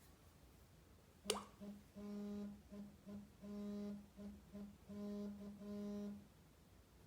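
Samsung Galaxy S4 (GT-I9500) vibration motor buzzing in a pattern of short and long pulses, about ten in all, after a sharp click about a second in.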